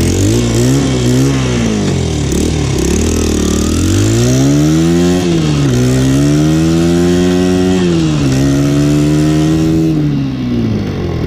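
Small four-stroke Honda dirt bike engine running on partial choke, blipped a few times, then revved up and held twice before settling back. The exhaust header is freshly sealed with a new gasket, so there is no leak or rattle.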